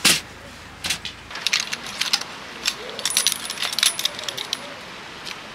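A sharp knock at the start, then a busy run of light metallic clinks and rattles from a folding black metal pole hanger stand being unfolded and set up; the clinking dies away about a second before the end.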